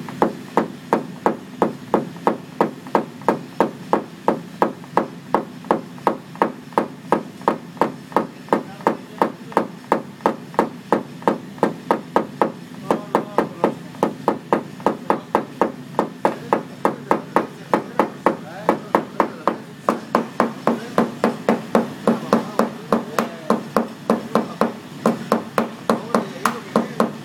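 Hammer tapping steadily on a car's sheet-metal body panel, about three light taps a second: knocking down a high crown beside a dent in paintless dent repair.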